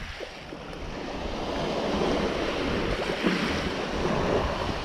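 Surf washing steadily on the shore, with wind on the microphone.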